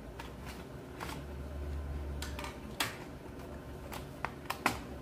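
Plastic bottom cover of an Acer laptop being prised off by hand, its retaining clips letting go in a series of sharp, irregular clicks and snaps.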